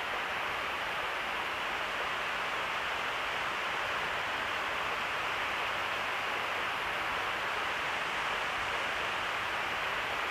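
Steady, even hiss of a microphone's background noise, with no other sound.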